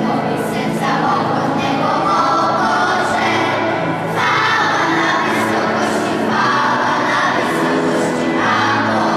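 Children's choir singing a Christmas carol together.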